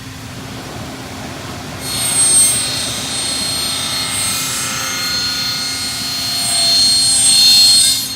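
Miter saw blade cutting through a pressure bar extrusion. A high-pitched cutting whine starts about two seconds in, swells near the end and cuts off sharply as the cut finishes.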